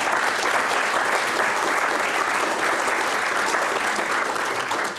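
Audience applauding: steady, dense clapping that tails off at the very end.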